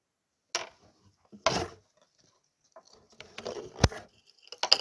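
A few separate knocks and clicks with light rustling in between, from things being handled and set down; the sharpest click comes near the end.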